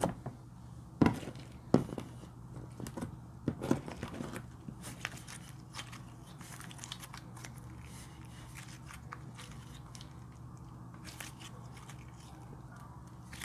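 Thick slime pressed flat and peeled up by fingers, making wet, sticky pops and clicks: several sharp ones in the first four seconds, then a softer run of small crackles as it is folded and stretched in the hands.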